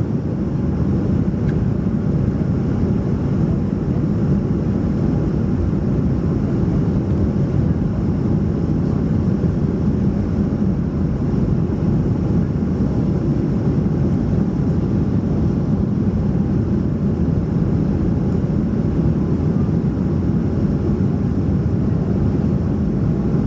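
Steady cabin noise of a Boeing 737-400 heard from inside the passenger cabin: an even low rush of engine and airflow with a faint high whine over it.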